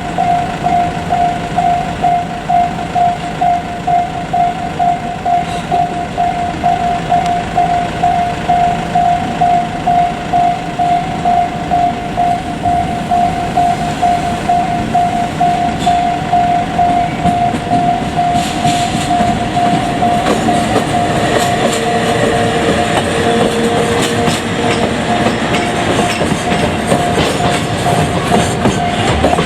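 Level-crossing alarm ringing a steady, evenly repeating electronic ding. Partway through, a JR Freight ED76 electric locomotive hauling container wagons comes through the crossing, and the clatter and rumble of its wheels over the rails grow loud and go on to the end.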